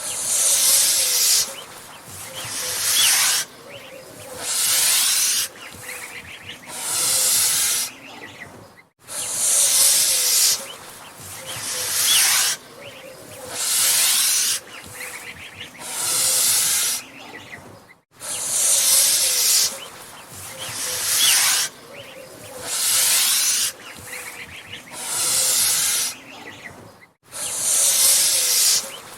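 Angry goose hissing: a string of loud, breathy hisses about a second long each, roughly one every two seconds.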